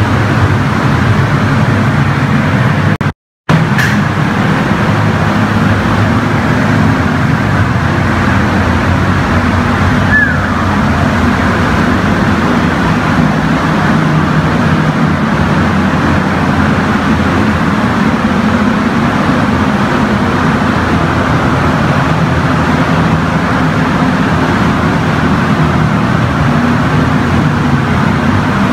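Paint spray booth's ventilation fans running: a loud, steady rush of air. It cuts out for a moment about three seconds in.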